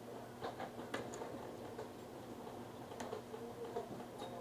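A few faint, scattered clicks and ticks over a quiet background.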